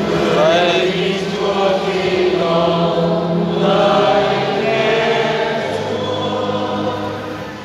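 Voices singing a hymn in chant style, with long held notes over a steady low accompanying tone; the singing eases off near the end.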